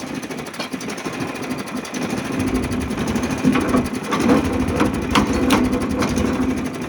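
Old Hudson portable sawmill running with a steady mechanical hum. A heavier low rumble comes in about two and a half seconds in, and several sharp knocks and ticks sound over the middle stretch.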